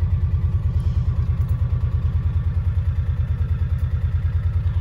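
Engine of a side-by-side utility vehicle running steadily as it drives, a low, even pulsing beat.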